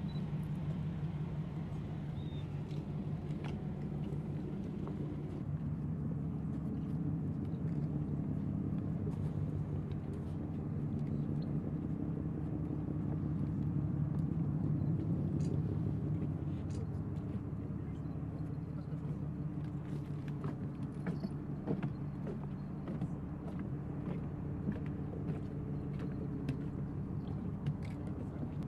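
A steady, low engine drone that holds one pitch throughout, with scattered faint ticks over it.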